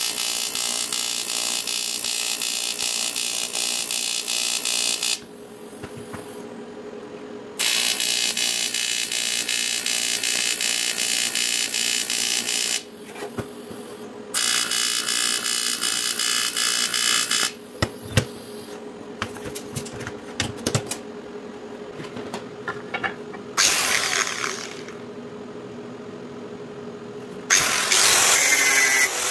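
TIG welding arc on aluminium, a buzzing hiss, struck in three runs of about five, five and three seconds over a steady hum, with a brief fourth burst later. A few sharp clicks come between runs, and an angle grinder starts near the end.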